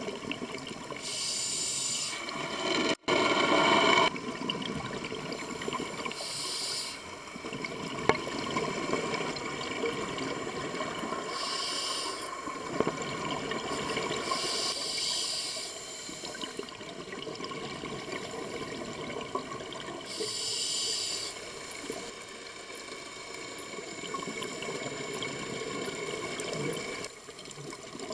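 Scuba regulator breathing heard through an underwater camera housing: a rushing burst of exhaled bubbles every few seconds over a steady underwater hiss.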